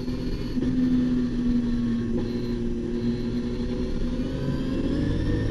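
Nissan R32 Skyline's RB26 twin-turbo straight-six heard from inside the cabin, holding steady revs around 5,000 rpm. Its note begins to rise near the end as the car accelerates.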